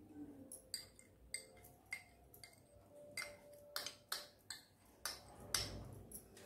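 A steel spoon tapping and scraping a small ceramic bowl as cornflour is emptied into a steel pot: a string of light, irregular clicks.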